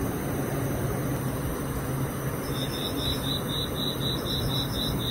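An insect chirping in an even rhythm, about four high chirps a second, starting about halfway through, over a steady low rumble.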